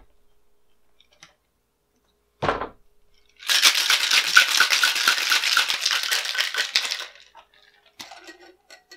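Ice rattling hard inside a Boston shaker, steel tin with a mixing glass, as a cocktail is shaken for about three and a half seconds, a fast, even rattle. A single knock comes about a second before the shake, and a few knocks near the end as the tin is struck to break the seal.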